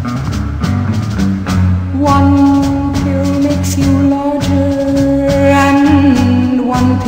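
Background music with a bass line and a steady beat; about two seconds in, a long held melody note comes in and lasts about four seconds.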